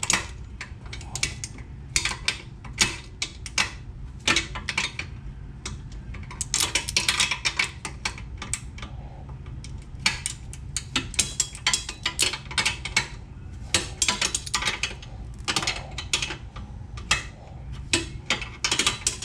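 Hand wrench working a tight nut on a Yamaha Warrior 350's swing arm in short strokes: repeated sharp metal clicks and clinks in quick runs with brief pauses, as the wrench is flipped over and refitted between each small turn.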